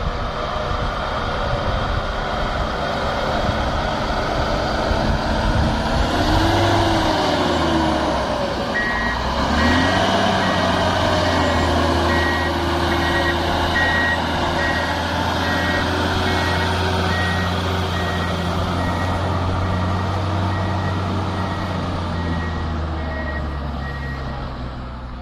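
PistenBully snow groomer's diesel engine running, revving up and down, then holding steady under load. From about nine seconds in, its reversing alarm beeps over and over, a high beep repeating a bit more than once a second.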